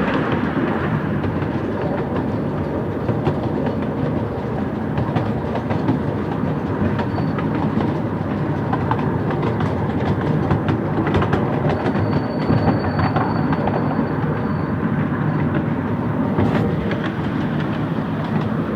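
Miniature railway coach rolling along the track, a steady rumble with frequent irregular clicks of the wheels over the rail joints. A faint high squeal comes in for a few seconds about twelve seconds in.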